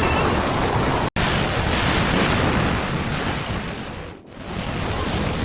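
Steady, loud rushing storm noise of wind and rain hitting a doorbell camera's microphone. It drops out for an instant about a second in, and dips and swells back a little after four seconds.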